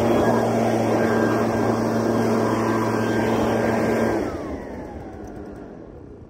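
Lawn mower engine running steadily, then shut off about four seconds in, its pitch falling as it winds down.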